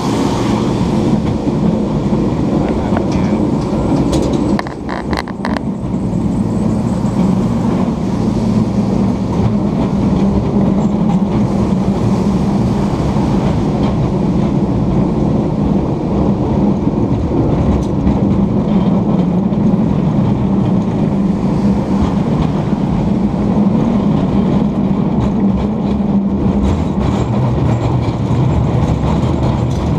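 Muni Powell-Mason cable car rolling along its track: a steady rumble and clatter from the car running on its rails, with a quick run of clicks about four to five seconds in.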